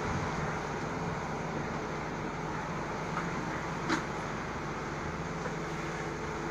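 Steady background noise with a low hum running under it, and one short sharp click about four seconds in.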